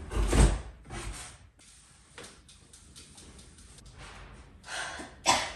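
A few handling knocks and bumps, the loudest with a low thud about half a second in and another sharp knock near the end, over faint rustling and small clicks.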